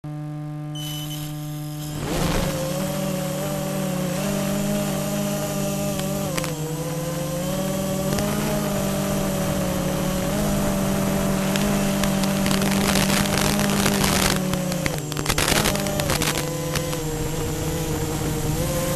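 FPV quadcopter's brushless motors and propellers. They hold a steady buzz for about two seconds, then the whine jumps up about two seconds in and keeps wavering in pitch with the throttle. Short bursts of rushing noise come near the end.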